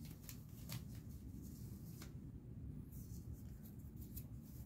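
Stretchy fabric arm sleeve being pulled up the arm and smoothed by hand: faint brushing and rubbing of cloth, a few short sharp rustles in the first two seconds, then a denser run of rustling about three seconds in.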